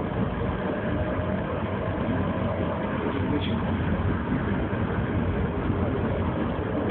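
Tram running, heard from inside the car as a steady low rumble of wheels and motor.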